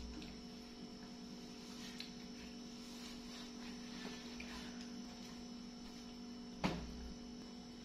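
A faint steady electrical hum with a few light taps, and one sharp thump about two-thirds of the way through.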